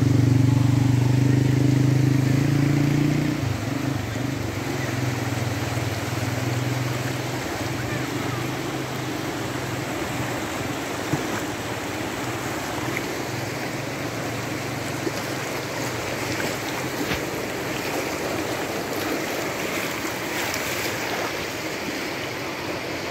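Muddy floodwater from a flash flood rushing in a wide torrent, a steady even noise. A vehicle engine runs at a steady pitch over it for the first few seconds, then drops away about three and a half seconds in and fades out.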